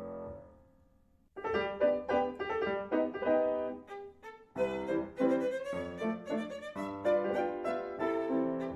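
Music score for a silent film: a sustained chord dies away, and after a brief pause a lively run of short violin notes with piano begins.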